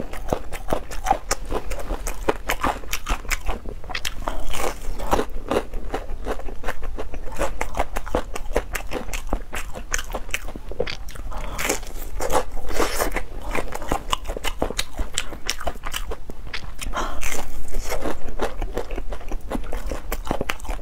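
Chewing a crispy breadcrumb-coated fried chicken cutlet: a steady crackle of crunching, with louder crunches about four seconds in, around twelve seconds in and around seventeen seconds in.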